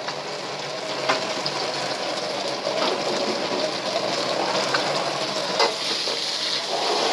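Sliced meat and green peppers sizzling in a wok as they are stir-fried, the sizzle growing gradually louder; a steel ladle scrapes and clinks against the wok a few times as it stirs.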